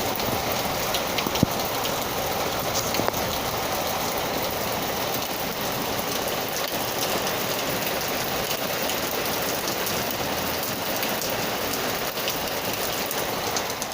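Steady rain falling, a dense even hiss with individual drops ticking close by. One sharper drip stands out about a second and a half in.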